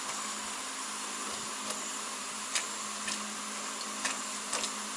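Live-steam model locomotive under steam on the bench: a steady hiss from its lit gas burner and leaking steam pipework, with a faint steady hum under it. A few light clicks sound as its wheels and valve gear are pushed round by hand to clear condensate from the cylinders.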